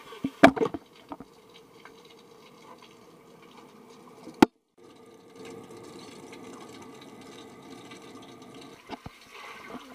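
Muffled underwater pool sound picked up by a submerged action camera: a steady low hum under water noise. A few sharp knocks come about half a second in, and a single sharp click comes a little over four seconds in.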